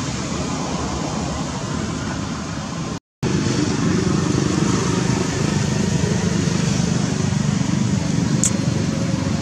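Steady outdoor background rumble typical of nearby road traffic, cut off completely for a moment about three seconds in and a little louder after. A short, high squeak sounds near the end.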